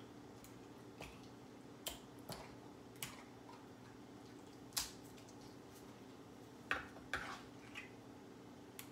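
Scattered soft taps and clicks of raw salmon fillets being turned by hand on a wooden cutting board, a few of them sharper, over a steady low hum.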